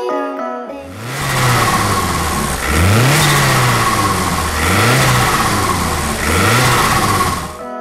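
Opel Corsa OPC's turbocharged four-cylinder engine revving, its pitch rising and falling four times. Brief music at the start, and again right at the end.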